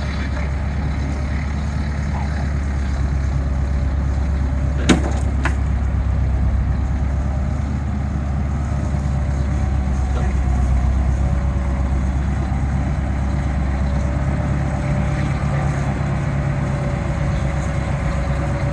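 Delivery truck engine running steadily at idle, with two sharp knocks about five seconds in.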